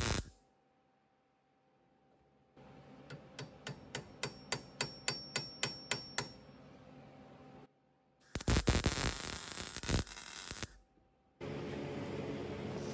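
Several workshop sounds in turn. A welding arc crackles and cuts off right at the start. Then comes a run of about a dozen sharp metallic taps at roughly three a second, then a loud burst of crackling for about two seconds, and from near the end a steady rasp of a file rubbing on steel bar held in a vise.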